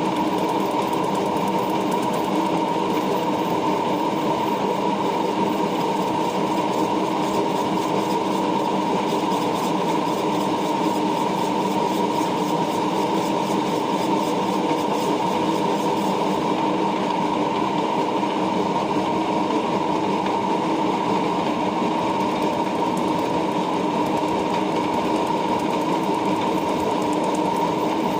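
Lathe running steadily while turning and shaping a nylon gate wheel, a constant mechanical whine with a high tone that does not change.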